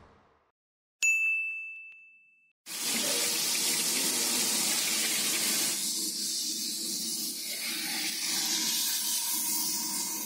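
A single bright chime about a second in, ringing out and fading over about a second and a half, followed by a steady hiss that runs on to the end.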